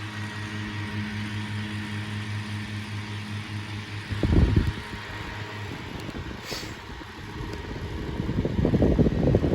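Unbranded 12-inch box fan running on high speed: a steady motor hum with a rush of air. A loud low rumble comes in about four seconds in, and another builds near the end.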